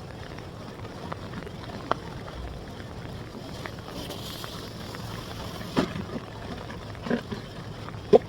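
Several sharp knocks and clacks from a pop-up canopy frame being handled and opened, the loudest near the end, over a steady hiss of wind and surf.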